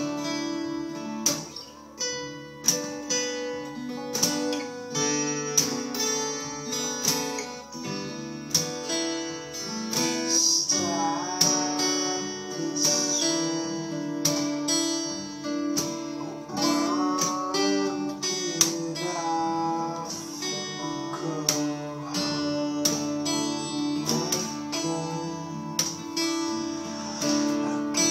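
Steel-string acoustic guitar played with plucked notes and chords in a steady, continuous pattern, with a few notes sliding in pitch around the middle.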